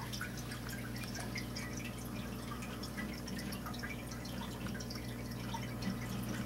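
Aquarium water bubbling, heard as many small scattered drips and ticks from a stream of fine bubbles. A steady low hum runs underneath.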